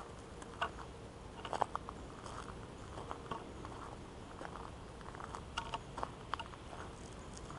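Footsteps crunching on a gravel trail: irregular crunches and clicks over a faint steady background.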